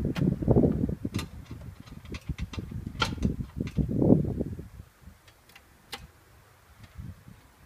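Harley-Davidson FL Duo Glide's panhead V-twin being kick-started: two kicks, each turning the engine over with a short burst of low, fast-pulsing rumble. Sharp mechanical clicks come with the kicks. The engine does not keep running and the sound dies away after the second kick.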